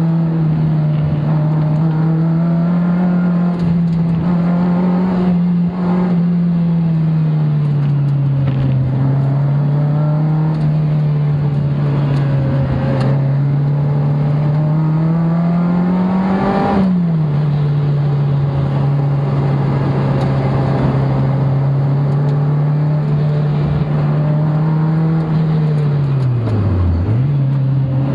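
Car engine heard from inside the cabin while lapping a race circuit: a steady drone that rises and falls gently with speed. It climbs to a high point about two-thirds of the way through, then drops sharply, and dips briefly once more near the end.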